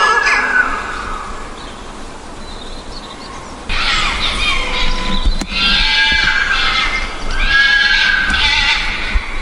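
An animal's loud, high, wavering calls, several in a row, starting about four seconds in after a quieter stretch.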